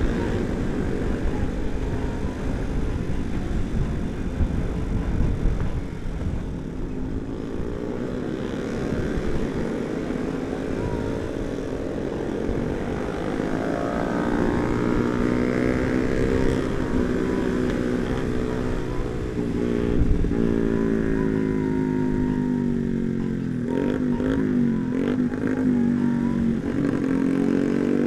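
Motorcycle engines running in traffic, their pitch rising and falling over and over as the bikes speed up and ease off, with steady wind rumble on the handlebar-mounted camera.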